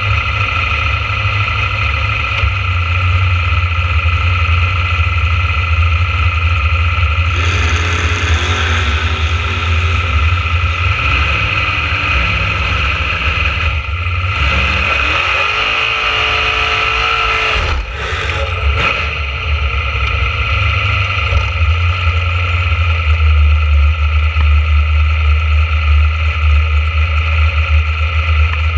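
Dragster engine idling, heard from a camera mounted on the car, with two spells of higher revs, about a quarter of the way in and again around the middle.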